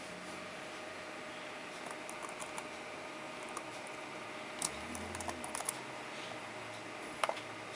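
A few scattered clicks of a computer mouse and keyboard, a small cluster of them a little past the middle, over a steady background hiss with a faint hum.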